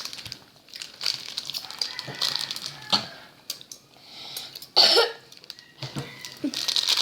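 Plastic snack bag of mini chips crinkling and rustling as it is handled and torn open, with a loud cough about five seconds in.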